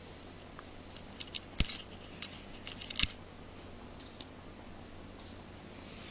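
Small sharp clicks and taps of tiny screws and a precision screwdriver against an iPhone 5's casing during battery-screw removal. They come as a quick cluster about a second to three seconds in, with the two loudest about a second and a half apart, then a few fainter ticks.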